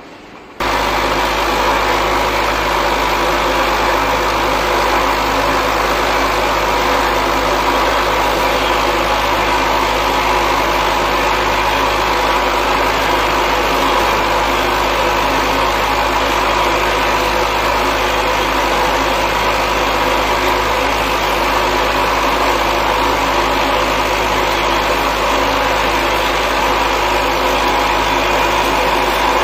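Bottle capping machine running, with its cap sorter, capping belts and conveyor making a loud, steady mechanical hum that cuts in abruptly about half a second in.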